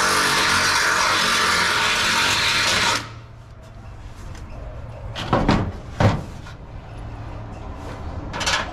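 Cordless drill running, its bit reaming out a pre-drilled hole in the truck's sheet metal to enlarge it for the bolt; it stops suddenly about three seconds in. A few short knocks follow as the part is fitted.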